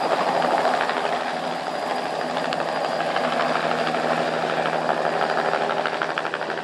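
Radio-controlled scale Bell 206 JetRanger helicopter running at steady high power as it lifts off and climbs away: engine and rotors running, very noisy.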